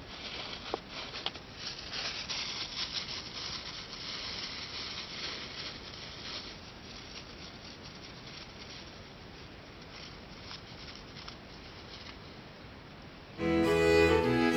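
A faint crackling hiss with scattered small clicks that swells and then dies down. About a second before the end, bowed-string background music comes in abruptly and much louder.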